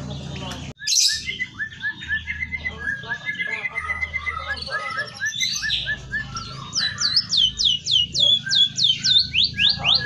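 Caged emprit kaji (white-headed munia) singing vigorously, its song filled with phrases learned from canaries and white-rumped shamas: a run of quick chattering notes, then a series of rapid downward-sweeping whistles at about four a second in the second half.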